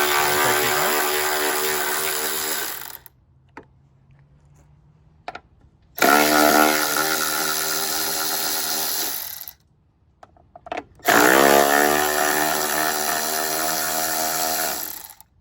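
Power drill driving a 10mm socket, backing out the headlight mounting bolts. The motor whines steadily in three runs of about three to four seconds each, with short pauses between them.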